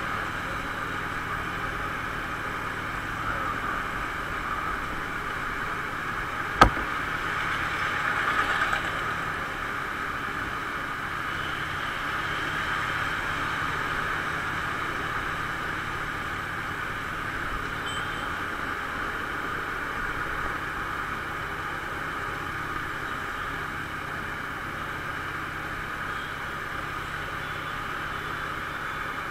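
Harley-Davidson SuperLow riding steadily in traffic: a constant rush of wind and road noise over the engine. A single sharp click about six and a half seconds in, and a brief swell of noise a couple of seconds later.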